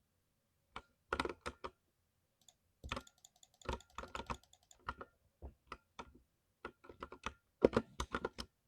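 Thocky mechanical keyboard being typed on: keystrokes in irregular bursts with short pauses between, the loudest run near the end.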